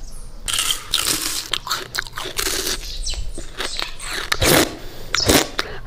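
Biting and crunching into a frozen ice pop, close up, in irregular crackly bites.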